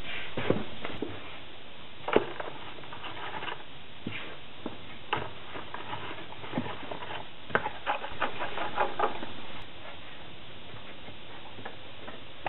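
Sand-mould making by hand: knocks of the wooden moulding flask being handled and set together, with gritty scraping and rustling of molding sand under gloved hands. The knocks and scrapes come irregularly and are busiest over the first ten seconds, the loudest knock about two seconds in.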